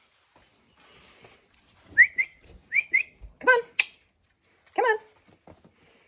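A person whistling to call puppies: two pairs of short, rising whistles, followed by three short, high-pitched calls.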